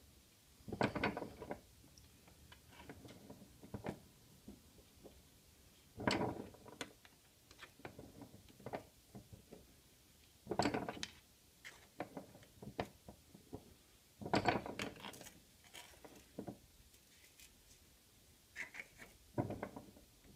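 Hand-operated arbor press crimping rivets into a Kydex sheath's straps: short clacks and knocks of metal on metal as the ram is brought down and the pieces are handled. They come in about five spells a few seconds apart.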